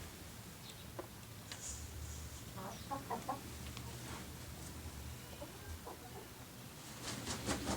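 Chickens clucking: a few short clucks about three seconds in, and a quick burst of rustling near the end.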